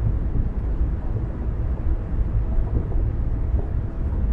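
A car being driven along a road: a steady low rumble of engine and road noise.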